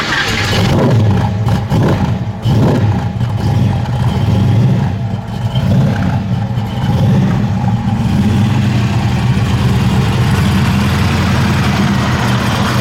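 A muscle car's V8 engine blipped a few times, each rev rising and falling quickly, then settling into a steady, loud, lumpy idle.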